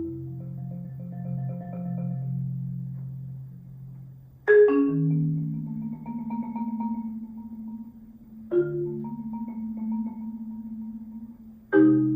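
Solo marimba playing contemporary concert music: low notes held as soft mallet rolls, broken three times by sharp accented strikes that ring out into new rolled chords.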